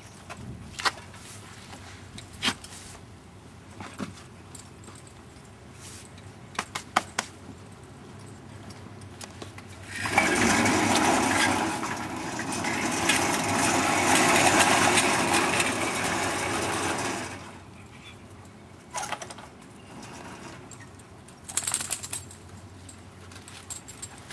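Sawmill at work: scattered knocks and clatter of wood being handled over a low running hum, then a loud stretch of sawing noise for about seven seconds starting about ten seconds in, followed by more knocks.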